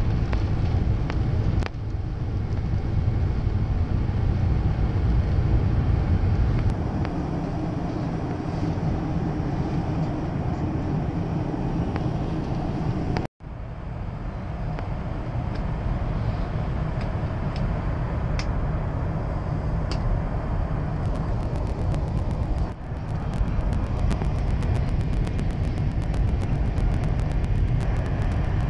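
Boeing 747-400 cabin noise at a window seat: the steady rumble of the jet engines and airflow through the fuselage, with the plane climbing out after take-off and, after a sudden break about halfway through, descending on approach to land.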